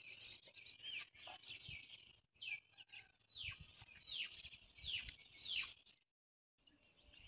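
Birds calling in the background: a run of quick chirps, several of them sliding sharply downward in pitch, with faint low knocks in between. The sound cuts out briefly near the end.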